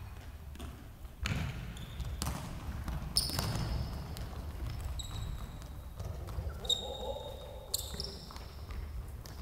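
A futsal ball being kicked and bouncing on a wooden sports-hall floor, several sharp knocks echoing in the large hall. Short high sneaker squeaks on the floor come several times as players turn and run.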